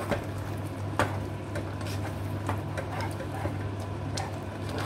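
Plastic spatula stirring a thick chicken curry in a nonstick pot: irregular light clicks and scrapes against the pot, with a sharper knock about a second in, over a steady low hum.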